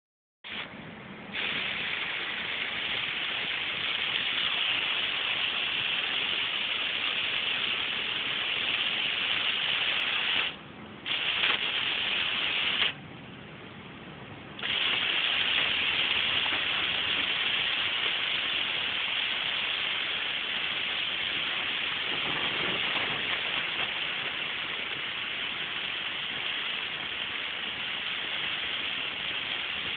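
Heavy rain on a moving car's roof and windshield, a loud steady hiss of rain and wet road spray. It drops away twice, briefly about 11 seconds in and for a couple of seconds around 13 to 15 seconds in.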